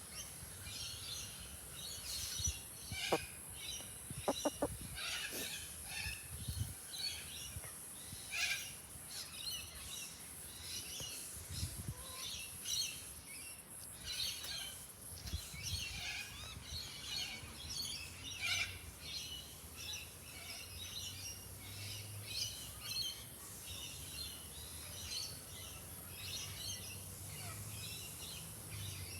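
Many birds chirping continuously in quick, high-pitched chirps, with a few short knocks a few seconds in.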